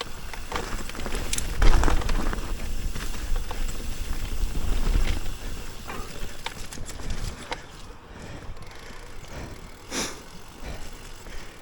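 Electric mountain bike riding down a rough trail: a steady low rumble of tyres and rushing air, with frequent sharp knocks and rattles from the bike, the hardest at about two seconds in and again near the end.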